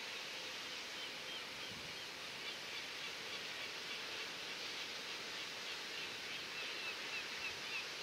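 Birds calling: short, high chirps repeated about twice a second in runs, busier in the second half, over a steady outdoor background rush.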